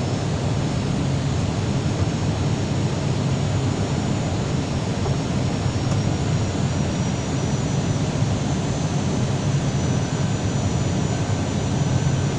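Steady jet noise of an Airbus airliner heard inside the cabin on approach, a low rumble of engines and airflow with a faint high whine above it.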